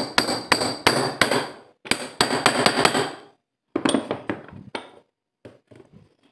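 A hammer striking a steel drift to knock the bearing out of a Honda power steering pump, about three sharp, ringing metal strikes a second for about three seconds. After a short pause come lighter metal clinks as the parts are handled.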